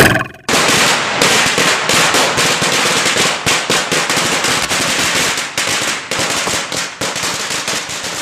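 A string of firecrackers going off in a rapid, dense crackle of pops and bangs, opening with a loud bang, then running for about eight seconds and growing gradually quieter near the end.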